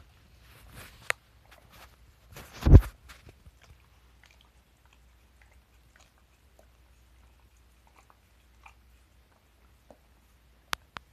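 White Shiba Inu licking and nibbling a person's face: faint wet smacking clicks, with one loud thump about two and a half seconds in and two sharp clicks near the end.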